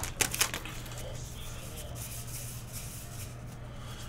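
Trading card pack wrapper crinkling as it is torn open, a few sharp crackles in the first half-second. Then faint handling of the cards over a steady low hum.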